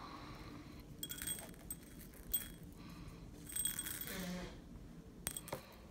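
Loose 4 mm glass beads clinking and rattling faintly in a small glazed ceramic bowl as fingers stir them, in scattered little clusters of clicks.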